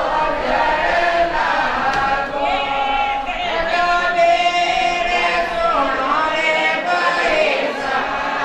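A gathering singing a devotional chant together in chorus, the voices holding long notes and gliding between them.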